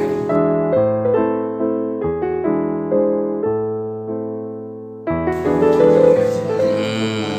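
Background piano music: slow, sustained notes that fade gradually, then a louder, fuller passage starts abruptly about five seconds in.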